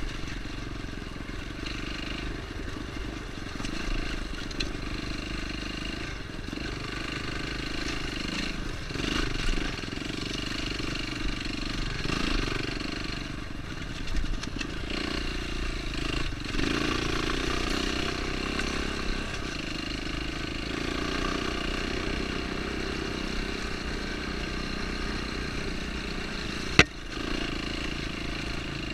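Dirt bike engine running while riding a rocky dirt trail, its note wavering up and down with the throttle, with a single sharp knock near the end.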